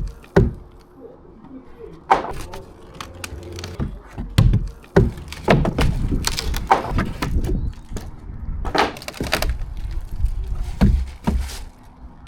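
Old rotten decking being prised up with a crowbar: wood cracking and splitting, with irregular knocks and thuds as boards come loose.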